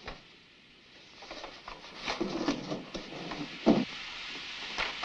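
Metal pipes and tools knocking and clattering as they are carried, a few separate knocks with the loudest about three and a half seconds in, over a hiss that builds from about a second in.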